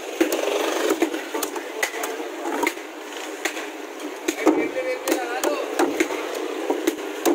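A hand-held toothed ice saw scraping and knocking against a large block of ice as the block is scored and split. The sound is a run of irregular sharp scrapes and taps.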